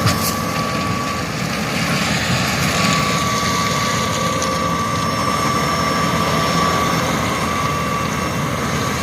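Heavy construction equipment engine running steadily, a low rumble with a thin steady whine over it.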